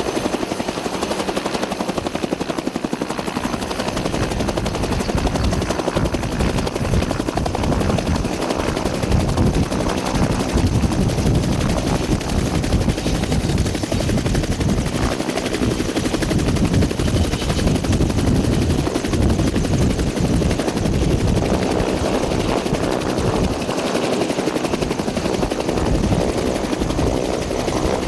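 Steady, loud aircraft noise, with irregular low rumbling that sets in about four seconds in.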